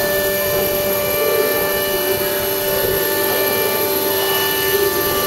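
CNC router spindle running at high speed and cutting into a wooden door panel: a steady whine of several held tones over the rough noise of the cut.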